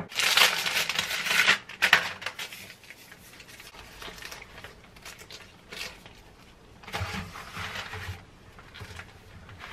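Plastic packaging and baking paper crinkling as a roll of chilled puff pastry is unwrapped and unrolled by hand. The crinkling is loudest in the first two seconds, drops to a quiet rustle, and comes back briefly about seven seconds in.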